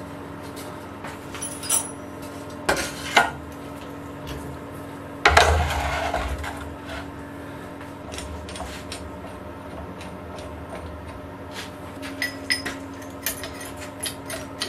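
Metal tools and parts clinking and knocking on a milling machine being worked on by hand. There are scattered clinks, one heavy knock with a dull thud about five seconds in, and a quick run of small clinks near the end, over a faint steady hum.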